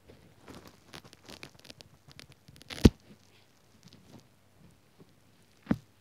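Close-up crackling and scratching as fingers press and work a wet, sudsy sponge laid over the microphone. A sharp thump comes just before three seconds in, and another near the end.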